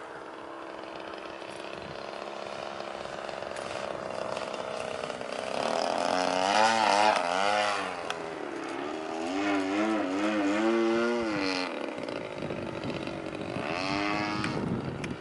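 Two-stroke 35cc gas engine of a Sbach RC aerobatic plane buzzing in flight, its pitch wavering up and down as it manoeuvres. It swells loudest about six to eight seconds in, again around ten seconds, and once more near the end.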